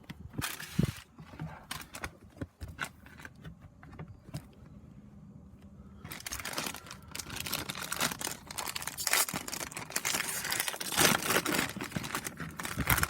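Pokémon card pack packaging being handled and opened: scattered clicks and rustles at first, then, about six seconds in, continuous crinkling and tearing.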